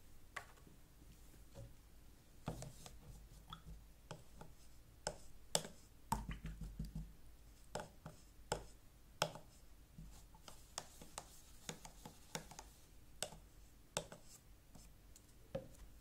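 Paintbrush tapping and scraping against a paint palette and a small paint pot as paint is loaded and stirred: scattered small clicks and taps.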